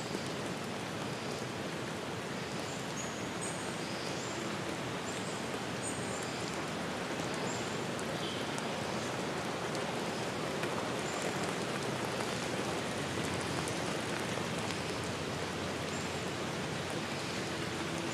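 Steady dense hiss of falling water, with a few short high chirps scattered through it. A low steady hum comes in near the end.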